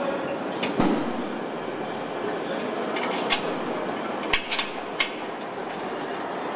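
Car assembly line running: a steady mechanical hum of conveyors and machinery, broken by several sharp metal clanks and clicks, the loudest about a second in.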